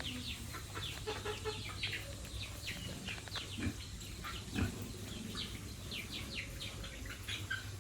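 Chickens calling: a dense scatter of short, high, falling chirps, several a second, with a few lower clucks mixed in.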